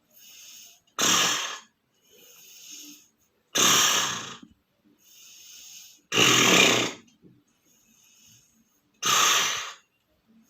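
A person snoring loudly, with four heavy snores about every two and a half to three seconds. Each snore is followed by a softer, hissing breath out.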